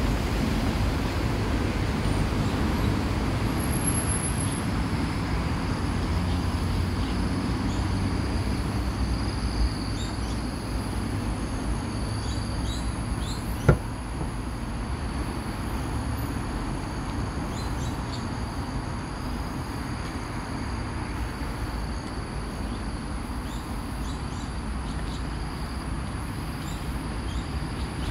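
Steady road traffic noise from passing vehicles, easing slightly in the second half, with one sharp click about halfway through.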